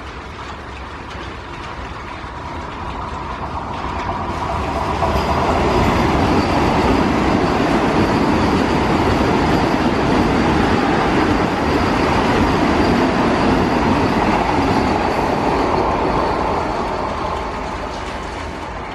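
Vande Bharat Express electric trainset passing close by, its wheels rolling on the rails. The sound swells over the first six seconds, holds for several seconds as the coaches go by, and fades near the end.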